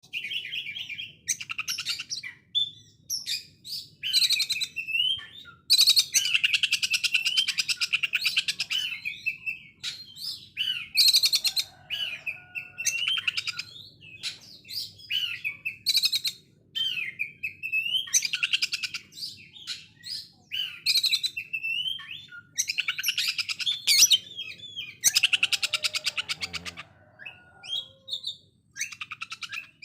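Oriental magpie-robin (kacer) singing in the harsh 'konslet' style: bursts of very rapid, rattling repeated notes likened to a sewing machine, mixed with shorter whistled and chattering phrases, with short pauses between bursts.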